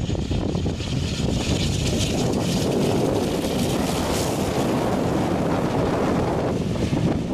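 The twin turboprop engines and propellers of a DHC-8 Q200 passing close on landing, the propeller hiss building to its strongest about four seconds in and then easing. Strong wind buffets the microphone throughout.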